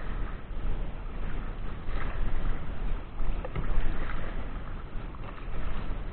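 Gusty wind buffeting the microphone, a rumbling rush that swells and falls, over water noise around a fishing kayak.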